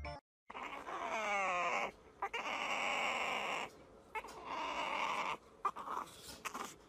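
Young puppy whining in three drawn-out cries, the first sliding down in pitch.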